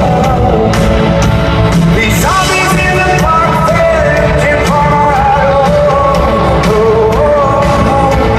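A rock band playing live with a lead singer, the drums hitting in a steady beat under the guitars and vocals.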